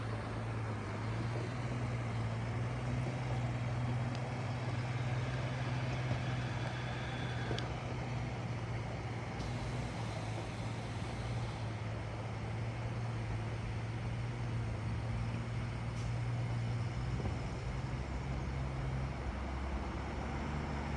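An engine running steadily, a low drone that shifts slightly in pitch near the end.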